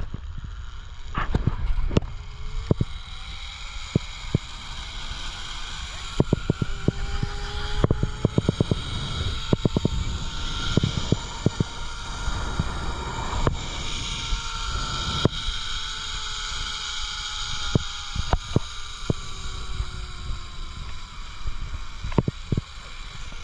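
Zip line trolley running down the cable: its pulley whine rises slowly in pitch as it picks up speed, then falls as it slows toward the end. Wind rumbles on the microphone, with scattered knocks and rattles.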